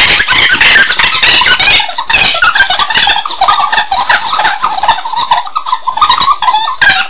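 Two kids screaming and shrieking, very loud and overloading the microphone, with some laughter mixed in. It starts abruptly.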